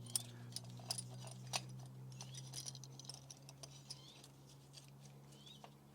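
Faint metallic clicks and ticks from a C-clamp being wound in against an old brake pad, pushing the rear brake caliper piston back into its bore. The clicks are scattered and thin out after the first couple of seconds, over a steady low hum.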